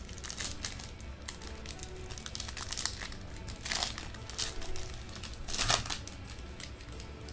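Foil wrapper of a Bowman Sterling football card box-topper pack crinkling as hands tear it open, in irregular bursts, the loudest just before the end.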